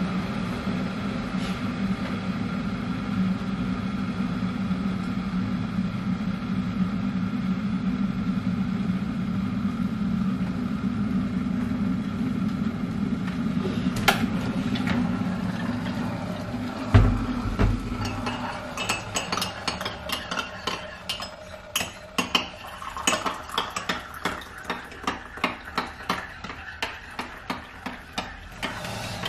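A steady mechanical hum runs for the first two-thirds, with a low thump about 17 seconds in. After that come repeated clinks and clatters of dishes and cutlery being handled.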